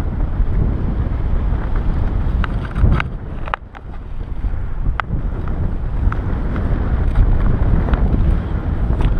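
Airflow buffeting the camera microphone in flight under a paraglider: a steady low rumble, with a few sharp clicks and a brief lull about a third of the way through.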